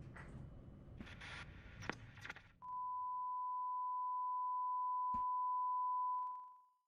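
Censor-style bleep: one steady, pure beep tone held for about four seconds. It starts a little over two seconds in and fades out near the end, with a single sharp click partway through. It is heard as a bleeped-out swear word.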